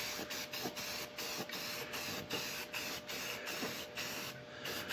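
Aerosol spray-paint can hissing in a rapid series of short pulses, about four or five a second, as a coat of white paint is sprayed onto an outboard's lower unit. The pulses stop shortly before the end.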